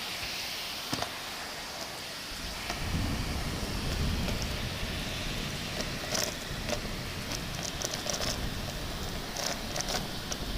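Steady heavy rain hissing, with scattered sharp drips and spatters. About two and a half seconds in, a low rumble of thunder rolls in and keeps going.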